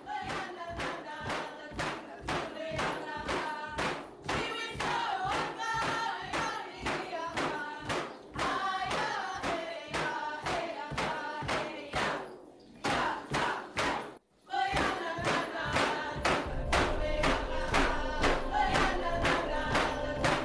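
A group of voices singing a chant over a steady drum beat, about two to three beats a second. It breaks off briefly about fourteen seconds in, then resumes with a low drone underneath.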